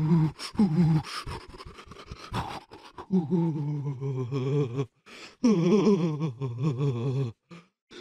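A person's voice making a shivering, trembling sound: low drawn-out groans whose pitch quavers rapidly, broken in the first few seconds by quick, stuttering gasps, then two long quavering groans separated by a short breath.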